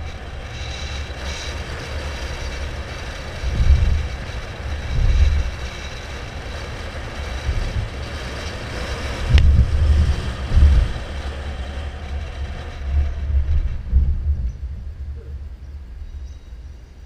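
Road and wind noise picked up by a GoPro mounted on a moving vehicle, a low uneven rumble with louder gusts every second or two and a single sharp click about nine seconds in; it quietens near the end.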